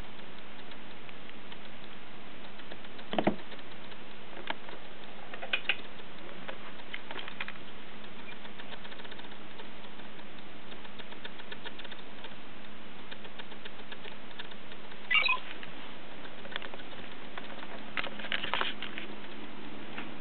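Handling noise from a handheld camera: a few soft clicks, taps and rustles scattered over a steady hiss and a faint hum, the clearest taps about three seconds in and about fifteen seconds in.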